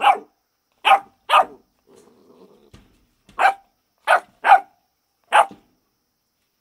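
Rottweiler puppy barking: seven short, sharp barks, some in quick pairs.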